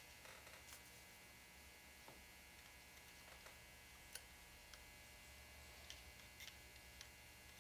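Near silence over a faint steady mains hum, broken by a dozen or so faint, short metallic ticks as a steel scribe presses on and hooks small internal parts in a revolver's lockwork.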